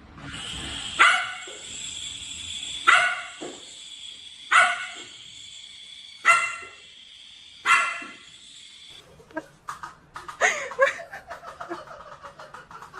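A dog barking five times, spaced about one and a half to two seconds apart, over a steady high-pitched tone. Near the end the barks give way to rapid fluttering, chattering voice-like sounds.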